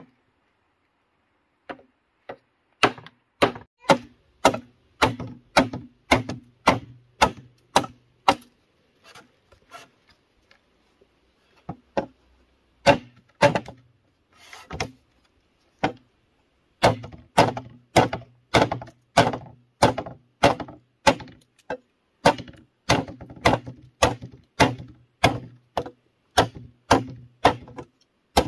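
Heavy machete-style chopping knife striking into a bamboo pole, sharp woody knocks at about two a second as the end of the pole is notched, with a pause of a few seconds in the middle.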